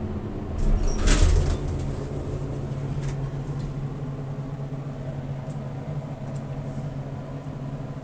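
Old FIAM elevator's motor giving a steady electric hum, with a loud clunk and rattle about a second in as the doors open.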